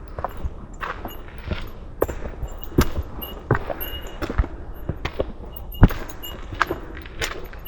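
Footsteps of a hiker on a dirt and stone mountain trail: uneven steps landing about once or twice a second.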